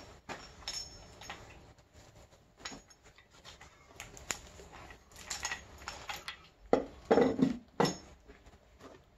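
Cast-iron cylinder head being handled and set down onto a small-block Chevy block over the head gasket: scattered metal clicks and scrapes, then three heavier knocks about seven to eight seconds in as the head is set on the block.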